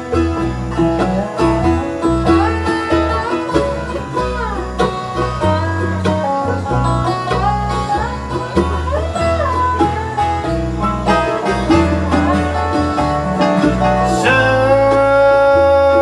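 Live bluegrass band playing an instrumental break on acoustic guitar, banjo, mandolin, resonator guitar and electric bass, the lead line full of sliding notes. A long held note comes in near the end.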